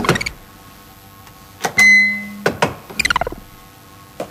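Electronic sci-fi sound effects for a wall door control: a few clicks, then a short buzzing tone about two seconds in, followed by a quick run of falling electronic chirps and a last click near the end.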